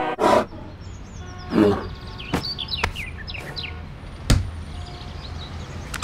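Birds chirping in many short, falling calls over a quiet forest background, with a thump just after the start and a few sharp clicks, the loudest about four seconds in.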